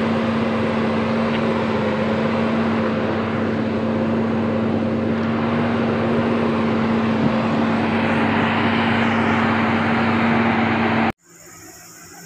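Volvo heavy truck's diesel engine running steadily under load, a constant droning tone over the rumble of the truck. It cuts off abruptly about eleven seconds in, leaving much quieter outdoor sound.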